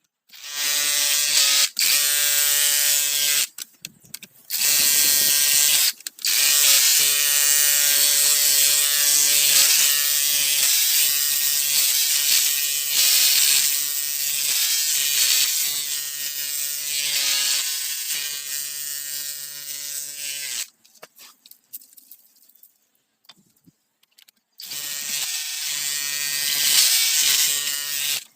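Bauer cordless rotary hammer running in hammer mode with a chisel bit, chipping in bursts with an even rattling buzz: a few short runs in the first six seconds, one long run of about fourteen seconds, a pause, then another run of a few seconds near the end.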